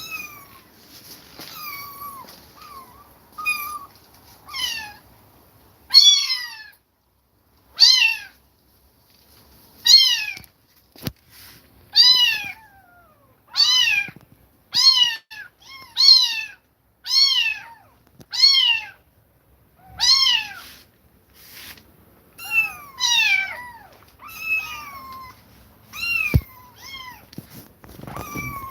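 Kitten meowing over and over in high calls that each drop in pitch, about one a second. They are softer and more scattered at first, and a few calls overlap near the end.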